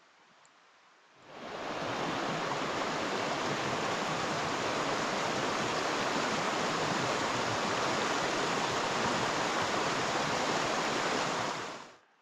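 Fast-flowing mountain creek rushing steadily over a rocky bed. The sound cuts in sharply about a second in and cuts off just before the end.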